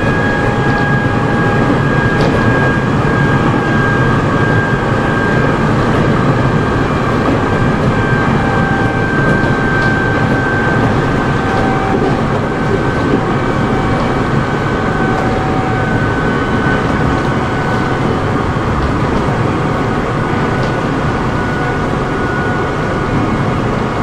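Nankai 6000 series electric train running, heard from its motored lead car. The Mitsubishi traction motors whine steadily over a dense rumble of wheels on rail, the whine slowly falling in pitch as the train loses speed.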